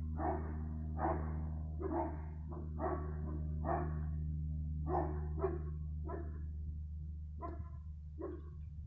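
A dog barking repeatedly, about one bark a second, the barks coming further apart near the end, over a steady low hum.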